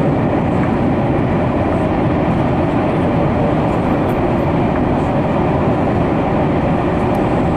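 Tokyu 5050 series electric train running through a subway tunnel, heard from inside the front car: a steady, even rumble of wheels on rail.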